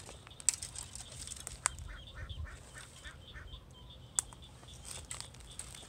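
Ducks calling: a quick run of short calls, several a second, from about two seconds in to past the middle, with a few sharp clicks.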